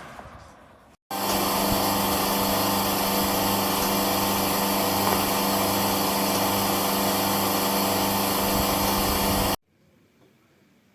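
Cecotec EnergySilence 6000 PowerBox floor fan running at a steady speed: an even whir of air with a constant motor hum. It starts abruptly about a second in and cuts off abruptly near the end.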